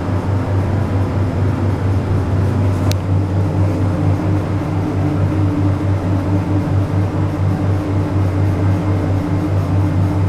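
Ride noise inside a 1975 Otis traction lift car travelling down: a loud, steady low hum with a slight pulse. There is one sharp click about three seconds in.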